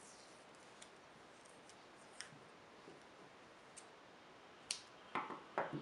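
Scissors cutting a piece off a roll of black tape: a few light clicks of handling, then a sharp click and two short snips near the end.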